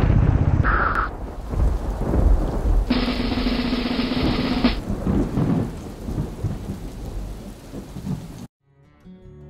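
Thunder rumbling over the hiss of rain, loud at first and slowly dying away. A short steady hum rises out of it in the middle, and it all cuts off abruptly about eight and a half seconds in.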